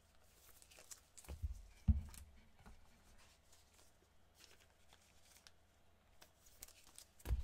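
Faint rustling and light clicks of trading cards being handled in gloved hands, with two soft thumps about one and a half and two seconds in.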